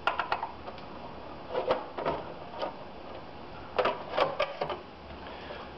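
The case of an oil burner being gripped and worked off its housing: irregular clicks, knocks and light rattles in a few short clusters, at the start, about two seconds in, and around four seconds.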